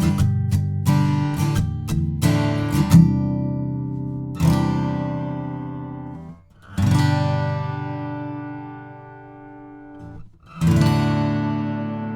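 Taylor 324e grand auditorium acoustic guitar (mahogany top, Tasmanian blackwood back and sides), picked up by a condenser microphone about a foot from the 12th fret. It is strummed rhythmically for the first few seconds, then single chords are struck and left to ring out and fade, with two brief stops where the strings are damped.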